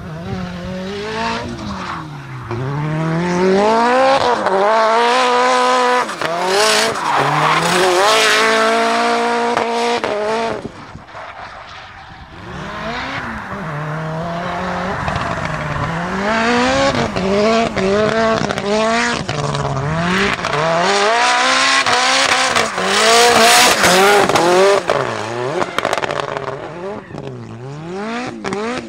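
Nissan 200SX S13 drift car with a turbocharged stroker CA20DET four-cylinder, revved hard and let off again and again as it drifts, with the tyres squealing. The engine drops away briefly about eleven seconds in, then builds again.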